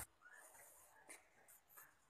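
Near silence: faint room tone, with a faint click about a second in.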